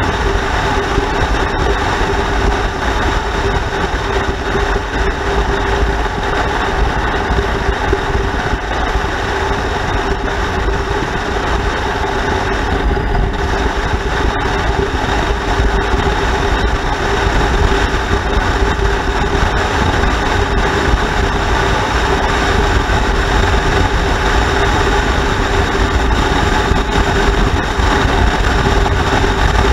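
Motorcycle engine running steadily under a dense, even rush of road noise.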